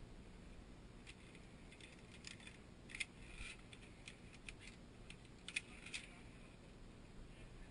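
Via ferrata carabiners clinking against the steel safety cable: scattered light metallic clicks, the two sharpest about three seconds and five and a half seconds in.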